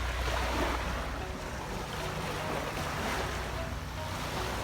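Sea waves washing on the shore, with wind rumbling on the microphone.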